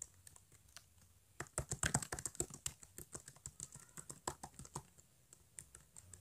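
Typing on a 2012 MacBook Pro's scissor-switch laptop keyboard: a run of quick key clicks. They come sparse at first, turn rapid and louder from about a second and a half in, and thin out again near the end.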